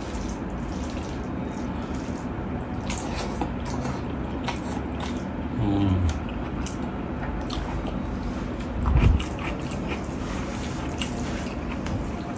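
A person eating rice and dal by hand: close chewing with many small wet mouth clicks and the squish of fingers mixing rice on a steel plate. Two short closed-mouth hums, about six seconds in and about nine seconds in, over a steady background hiss.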